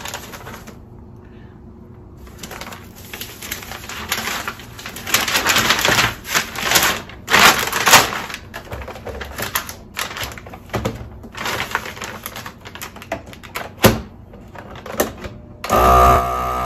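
Plastic vacuum-seal bag crinkling and rustling as a box is slid into it and the bag is fitted into the sealer, with a sharp click near the end. Then the FoodSaver's vacuum pump starts with a steady hum, drawing the air out of the bag.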